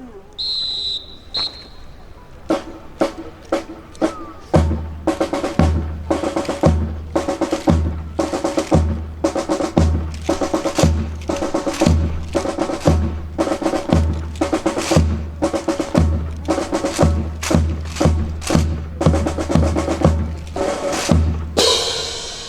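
Drum percussion for a rifle drill: two short high whistle blasts, then sharp snare-like strikes from about two and a half seconds in, joined by a bass drum beating roughly once a second from about four and a half seconds in.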